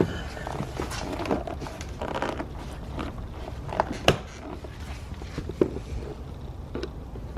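Scattered clicks, light knocks and scrapes of hand work on a car door's plastic trim: a pull-handle cover pried up and its Phillips screws undone with a screwdriver.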